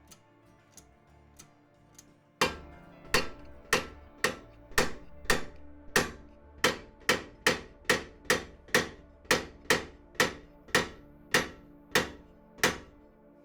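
A hand hammer striking a workpiece in the shop, about twenty sharp ringing blows that start slowly and quicken into a steady rhythm, then stop. Background music plays underneath.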